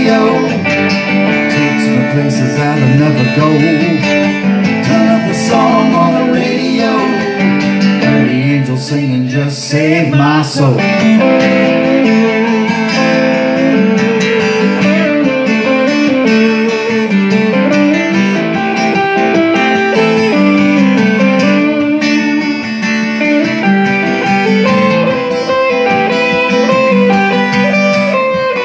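Live band instrumental break: electric guitar playing melodic lead lines with bent notes over a strummed acoustic guitar.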